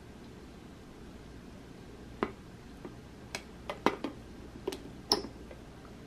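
Hard lucite purse being handled: a quick run of about eight sharp clicks and taps as fingers work its brass clasp and lift the hinged lid open, the last click the loudest with a short bright ring.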